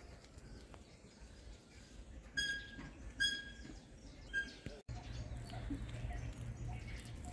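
Three short, high chirps from a bird, about a second apart. After a brief dropout a steady low hum sets in, with faint regular ticks.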